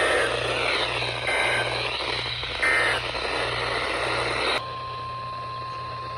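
Weather radio broadcast over radio static: three short warbling two-tone SAME data bursts, the end-of-message code that closes an alert. About four and a half seconds in, the static cuts out and a steady single tone near 1 kHz begins, the weather radio alert tone that heads the next warning.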